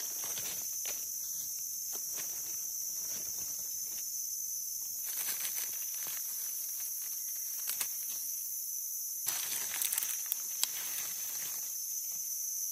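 Steady high-pitched drone of insects in dry forest, with dry leaf litter rustling and crackling now and then as a hand pushes through it to pick a mushroom, busiest about two-thirds of the way in.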